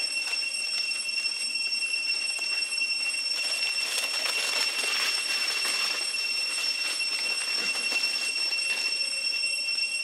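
Cicadas droning with a steady high-pitched whine, swelling to a louder rasping pulse from about three and a half to six seconds in.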